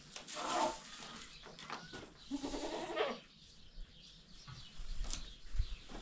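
Livestock bleating off-screen: two calls, the second longer and lower. Footsteps crunch on a gravel floor near the end.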